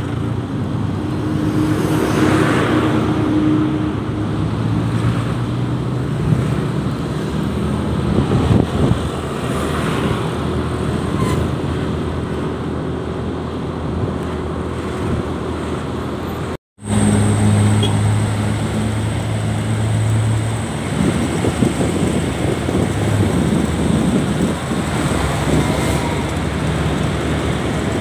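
Motorcycle engine running with road traffic going past, heard from a moving scooter in slow, heavy traffic. Steady engine hums from nearby vehicles come and go. There is a brief dropout about two-thirds of the way through, after which the traffic noise carries on.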